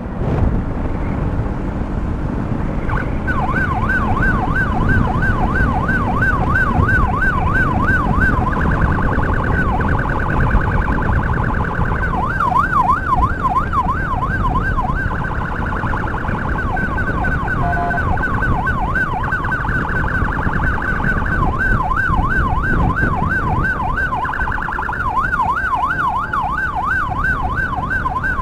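Electronic vehicle siren starting about three seconds in and switching back and forth between a yelp of about three sweeps a second and a much faster warble, over steady wind and road noise.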